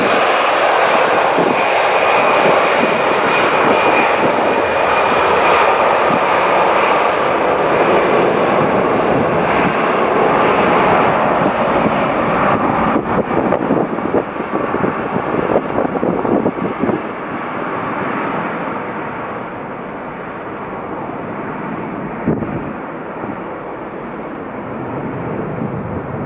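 Twin jet engines of an Airbus A330 running at high power as the airliner rolls away down the runway: a loud roar with a faint high whine, fading over the second half as the aircraft draws away.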